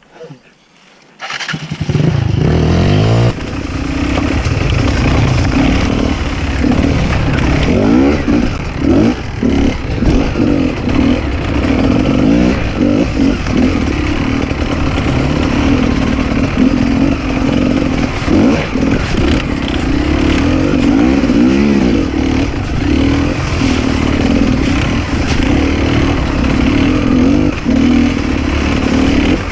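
Enduro dirt bike engine starting up about a second in, then running under riding load with the throttle repeatedly opened and closed, its pitch rising and falling.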